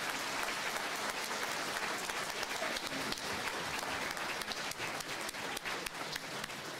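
Audience applause: many people clapping steadily at the end of a keynote talk.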